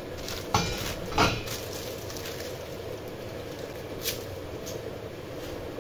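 A pot lid clanks twice in the first second and a half as it is lifted off a stainless-steel pot and set down on the gas stove's grate, with a lighter knock about four seconds in. Underneath is a steady hiss from the lit gas burner.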